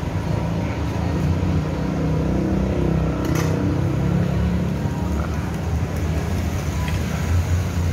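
Street traffic: motor scooter and car engines running past close by, a steady low rumble, with a single short click about three and a half seconds in.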